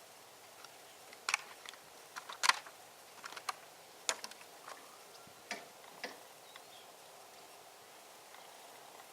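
Irregular light clicks and knocks, about a dozen scattered through the first six seconds with the sharpest about two and a half seconds in, then only faint background.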